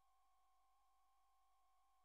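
Near silence: only a faint, steady two-tone whine over a faint hiss, unchanging throughout.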